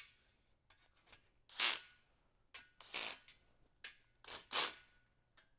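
Cordless drill/driver running screws into the steel rails of a battery rack in a series of short bursts, about six over the last four seconds, with its clutch set so the screws are not over-tightened.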